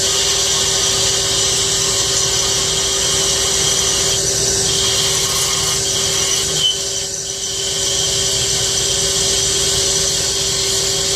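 OMNI-Turn CNC lathe running with a steady machine tone, taking a roughing cut on the top of a 6061 aluminum cap. The sound drops briefly about seven seconds in, then resumes.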